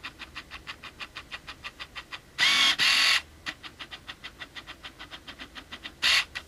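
Autofocus motor of a Canon 18-55 IS kit lens, heard through the camera's built-in microphone while filming: a fast run of small clicks, about six a second, broken by two louder buzzing drives, one lasting nearly a second about two and a half seconds in and a short one near the end, as the lens hunts for focus.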